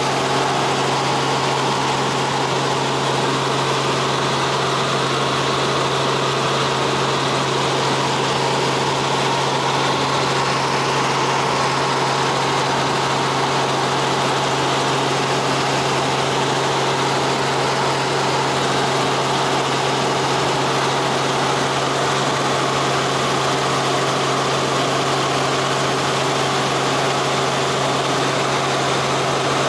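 Steady drone of a helicopter's engine and rotors heard from inside the cabin in level flight: a constant low hum with rushing air noise.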